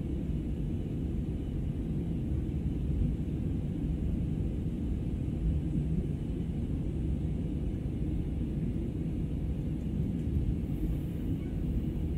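Steady low rumble of jet engines and airflow, heard inside the cabin of a Peach Aviation Airbus A320-family airliner in flight.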